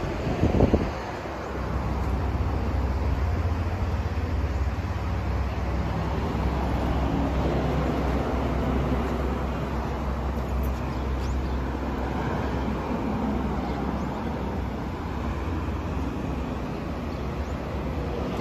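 Nihon Chorikiki MX40 high-speed mixer running empty. After a couple of knocks, its motor starts about a second and a half in and then runs with a steady, even hum.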